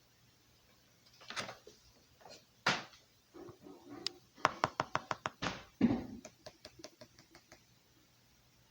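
Slime being squished and pressed by hand, with soft squelching rustles and a quick run of sharp crackling pops through the middle, typical of crunchy slime.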